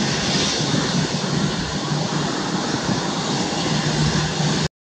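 Airbus A320-214's CFM56 jet engines running steadily, a loud rushing roar with a low hum, as the airliner stands lined up on the runway for takeoff. The sound cuts off abruptly near the end.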